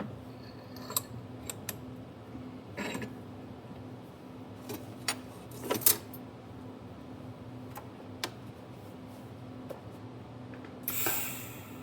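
Small metal parts and tools handled and set down on a workbench: scattered clicks and clinks over a steady low hum, with a short hiss about eleven seconds in.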